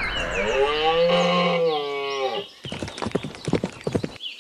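A cow moos once, a long call of about two seconds, over a steady hiss that cuts off just after it. Then comes a quick run of clicks and knocks.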